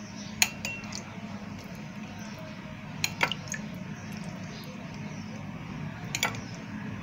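Metal spoon clinking against china bowls while pineapple syrup is spooned over cake pieces. There is one sharp clink about half a second in, a few quicker ones around three seconds, and another near the end.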